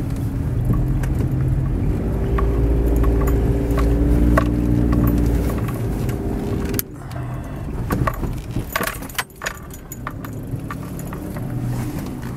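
Car engine running with a steady low rumble, slow-moving as it pulls up, until it cuts off abruptly about seven seconds in. Then a scatter of clicks and small rattles.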